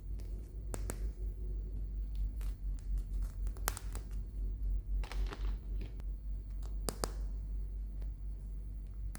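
Hands handling toy packaging up close: scattered sharp plastic clicks and a brief crinkle partway through, over a steady low hum.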